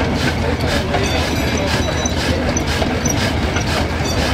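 Old stationary engine running and driving a flat belt over iron pulleys, giving a steady, rhythmic mechanical clatter.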